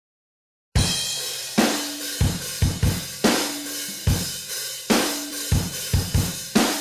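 Solo drum-kit beat with kick, snare and cymbals, starting after a moment of silence and playing at a steady pace as the intro to a rock backing track.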